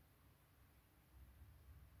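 Near silence with only a faint low hum: the front-loading washing machine's drum stands still between tumbling turns.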